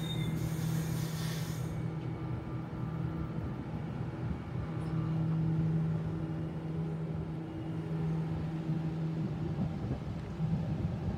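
Sydney Trains Waratah B-set double-deck electric train pulling slowly into the platform: a steady low electrical hum from the train with wheel rumble, and a brief hiss in the first couple of seconds.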